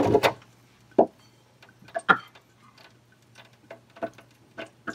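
Hot oil in a deep fryer ticking and popping now and then: a handful of scattered, irregular sharp pops over a low steady hum.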